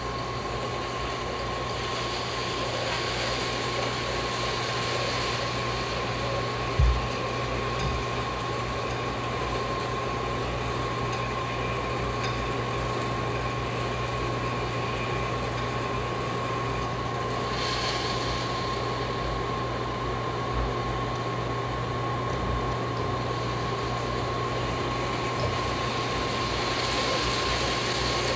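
Steady machine-like hum and hiss with a constant high tone running through it, and one brief thump about seven seconds in.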